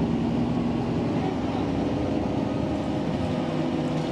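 Tokyu city bus running through city streets, heard from inside the cabin: a steady engine and road drone with a low, even hum.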